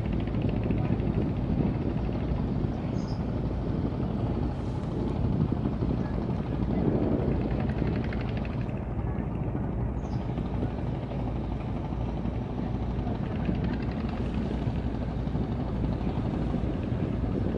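Boat engine running with a steady low, fast-pulsing rumble as a boat passes on the river.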